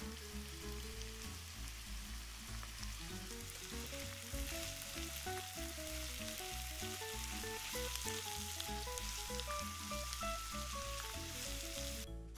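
Diced onion, sweet pepper and garlic sizzling in olive oil in a frying pan, stirred with a silicone spatula, under background music. The sizzling stops just before the end.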